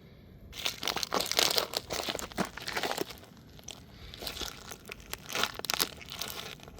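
A plastic toy car crackling and crunching under a sneaker sole as it is crushed, in two bursts of dense crackles: a long one starting about half a second in and a shorter one near the end.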